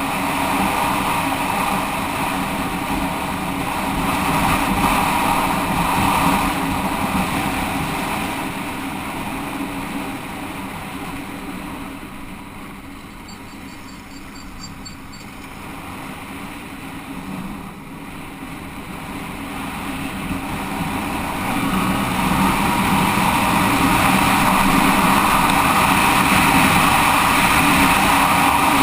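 Single-cylinder motorcycle engine running on the road with wind noise. It gets quieter for several seconds about halfway through, then builds back up louder.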